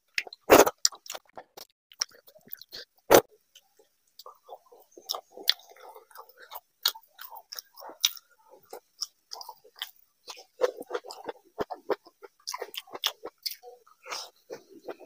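Close-miked eating sounds of a man eating vegetable khichdi by hand: chewing and wet mouth noises with many short, sharp smacking clicks, the loudest about half a second and three seconds in.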